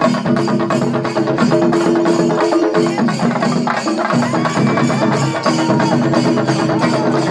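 Chenda drum ensemble (shinkari melam) beaten with sticks, a dense, fast, continuous rhythm with steady ringing tones underneath.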